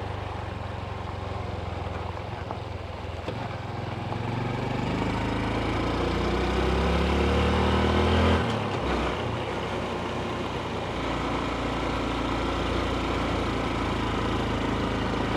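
Honda CT125's single-cylinder four-stroke engine running under way, its pitch rising as the bike accelerates, then dropping suddenly about eight seconds in and settling to a steady cruise.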